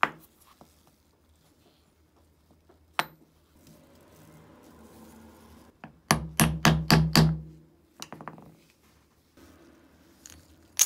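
A quick run of about six sharp wooden knocks, roughly five a second, as a wooden rod is driven down to press the metal grinding ring into a pepper grinder's wooden collar. Single knocks come near the start and about three seconds in, and a few fainter ones follow the run.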